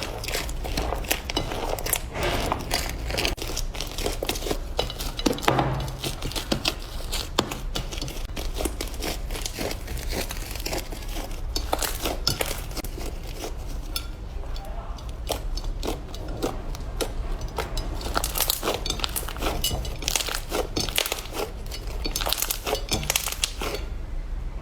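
Slime being squeezed and pressed by hand, making a dense, continuous run of crackles and pops.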